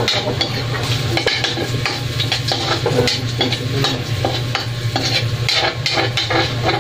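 Food sizzling in a frying pan while a utensil stirs and turns it, scraping and clicking against the pan again and again at an irregular pace.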